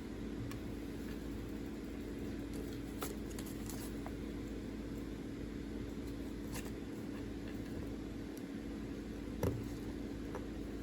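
A steady low hum with a few faint, sharp clicks; the loudest click comes about nine and a half seconds in.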